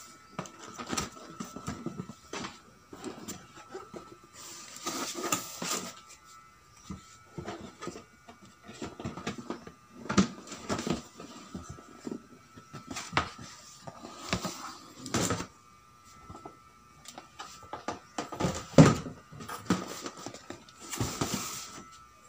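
Cardboard model-kit box being handled and its outer lid slid off: scattered knocks, taps and rustles of cardboard, with a longer sliding rush about five seconds in and another near the end.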